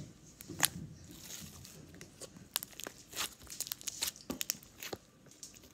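Glitter slime being squeezed and poked by hand, giving off irregular sharp clicks and pops.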